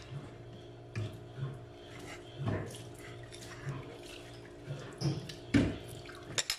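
A metal fork scraping and tapping on a ceramic plate as soft mashed cassava is scooped up: a few short, soft knocks and scrapes spread out, over a faint steady hum.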